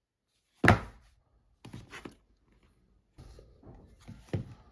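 Unboxing handling sounds of an Apple TV 4K box and its packaging: one sharp loud knock about half a second in, two softer knocks a second later, then rubbing and scraping with another sharp click near the end.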